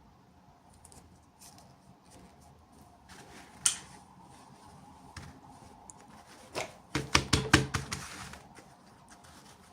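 Hands handling small plastic toy packaging and pieces: soft rustling, a sharp click a little over a third of the way in, then a quick run of clicks and knocks near the end.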